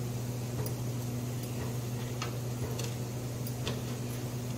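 Sabudana tikkis shallow-frying in oil on a tawa: scattered sharp pops and crackles of spitting oil, about one or two a second, over a steady low hum.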